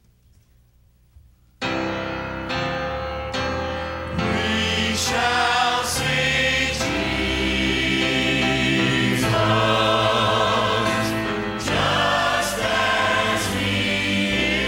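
Gospel music starting abruptly after near silence: grand piano chords strike about a second and a half in, and from about four seconds singing voices with vibrato join the piano and accompaniment.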